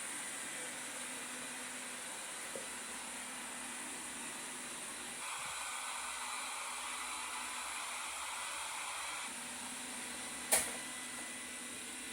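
Xiaomi S10 robot vacuum running: a steady motor whir with a thin high whine. For about four seconds in the middle the sound turns hissier, and a sharp knock comes near the end.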